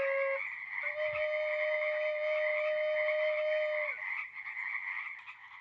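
Long held musical notes, stepping up in pitch and ending about four seconds in, over a steady chorus of calling animals that fades out near the end.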